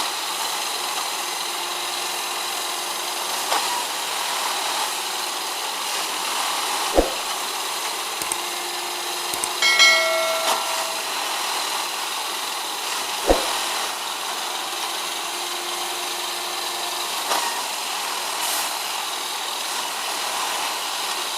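Railway ballast tamping machine working: its engine runs steadily, with a hum that comes and goes every six or seven seconds. Two sharp thumps sound about six seconds apart, with a brief squeal between them.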